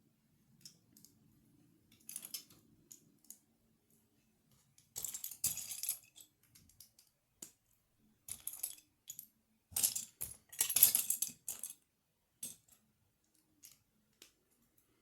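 Loose plastic Lego pieces rattling and clicking together in short bursts as they are handled. The longest bursts come about five and ten seconds in.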